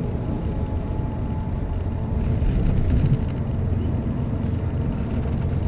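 Steady low rumble of road and engine noise inside a moving car, swelling slightly for about a second midway.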